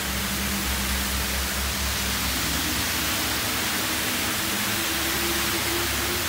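Steady hiss of rain, with faint steady tones of music underneath.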